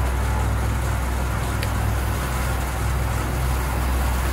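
A steady low hum with an even hiss over it, and one faint tick about one and a half seconds in.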